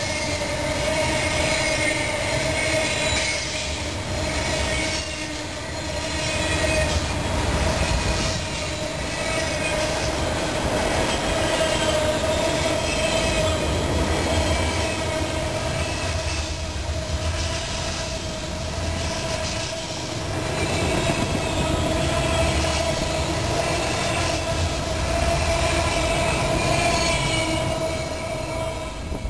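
Freight train of autorack cars rolling past close by: a steady rumble and clatter of the wheels on the rails, with a steady high-pitched ringing tone held over it.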